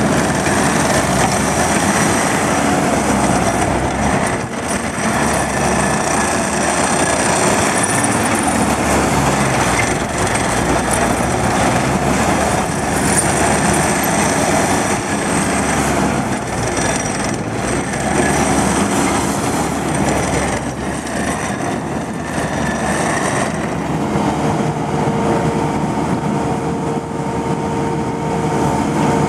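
Gehl CTL80 tracked skid steer running loudly on its large diesel engine, the noise rising and dipping as the machine is worked. Near the end a steady humming tone comes in over the engine.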